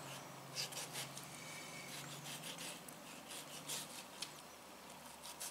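Kitchen knife cutting cucumber strips into sticks on a plastic cutting board: faint, irregular soft clicks as the blade goes through and meets the board.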